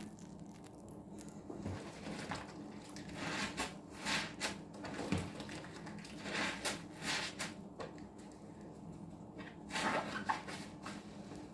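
Soapy green sponges being squeezed and squished by hand in a tub of dish-soap suds and water: wet squelches and crackling foam, irregular and uneven, getting busier from about three seconds in.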